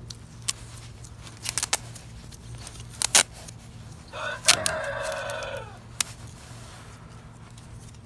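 A rooster crowing once, about a second and a half long, near the middle, its call holding steady and then dropping at the end. Around it, a few sharp clicks and taps from the plastic vacuum hose and cuff being handled.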